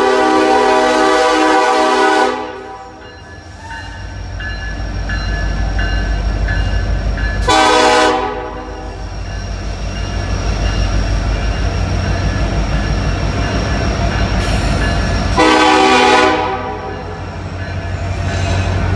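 Union Pacific freight train's diesel locomotive horn sounding a long blast that ends about two seconds in, then two short blasts roughly eight seconds apart. Between the blasts comes the low rumble of the diesel locomotives and rolling cars passing at a crawl, growing louder.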